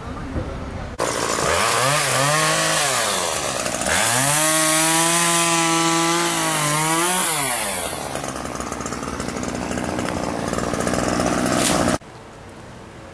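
Chainsaw revved up twice: a short burst, then a rev held at high throttle for about three seconds before dropping back. A loud rough rasping follows and cuts off suddenly about twelve seconds in.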